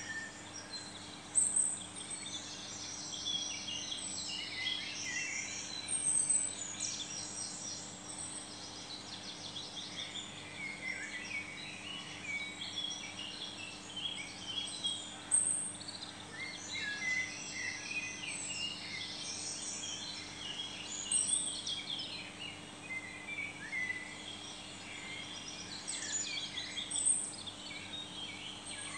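Several small birds chirping and twittering, with louder calls every few seconds, over a steady low hum.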